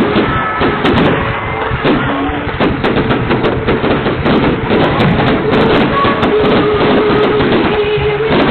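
Fireworks going off in a dense run of rapid pops and crackles, with music underneath.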